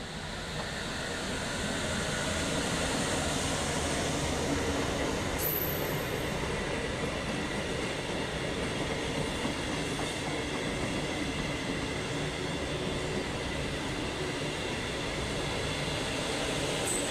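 Express train running through at high speed without stopping, its rolling rail noise building over the first two seconds and then holding steady.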